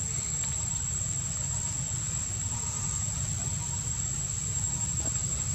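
Steady outdoor ambience: a continuous, high-pitched insect drone over a low, steady rumble.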